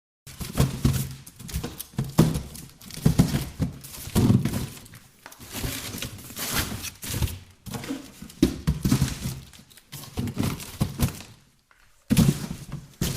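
Boxes being shifted and handled: an irregular run of thunks, knocks and scuffing, with a brief pause just before the end.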